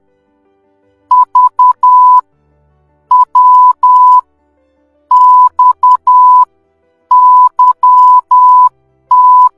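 Morse code beeps: a single steady tone keyed on and off in short and long pulses (dits and dahs), in four groups about two seconds apart. The groups spell the letters V, W, X and Y, and a fifth begins near the end.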